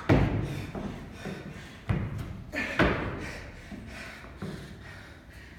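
Feet landing hard on a plyo box: a loud thud right at the start, two more about two and three seconds in, and a fainter knock a little later.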